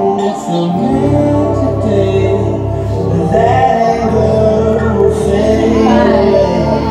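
Music playing: a song with a sung melody gliding over sustained low bass notes.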